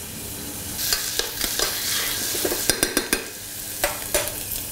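Diced onions sweating in oil in a steel saucepan: a steady soft sizzle, with several sharp clicks and knocks, the loudest a quick cluster about three seconds in.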